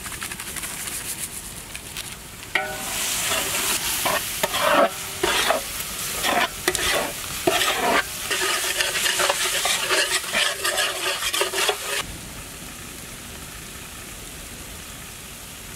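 Sliced onions and spices sizzling in hot ghee and oil in a large cooking pot. From about two and a half seconds in until about twelve seconds in, a spatula stirs and scrapes through them in irregular strokes. After that only the steady sizzle remains.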